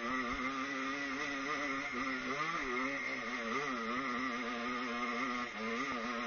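Dirt bike engine heard from the bike's onboard camera, its note rising and falling as the rider works the throttle up a steep hill climb.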